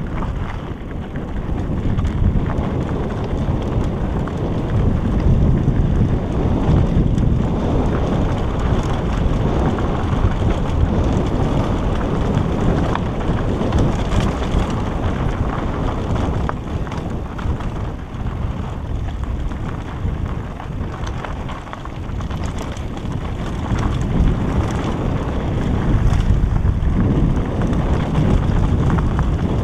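Wind buffeting the microphone of a helmet-mounted action camera on a mountain bike rolling down a loose gravel track, a steady low rumble, with the tyres crunching over the stones beneath it.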